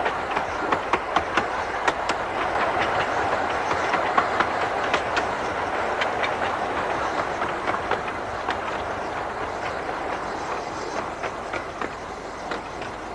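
Miniature 15-inch gauge train running at speed behind steam locomotive No.5, with a steady rumble and many sharp clicks of the wheels over the rail joints. The sound fades gradually over the second half.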